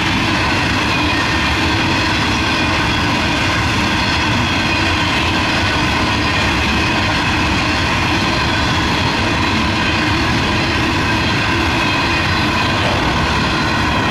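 Empty narrow-gauge coal train rolling steadily past at speed: a continuous rumble of wagons on the rails, with steady ringing tones over it.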